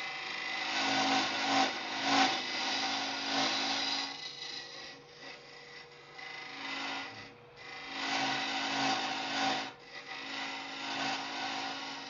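Boring bar cutting inside a spinning ash vessel on a wood lathe: a scraping hiss of the cutter in the wood that swells and eases in uneven passes, with two short breaks near the end, over a steady hum from the lathe.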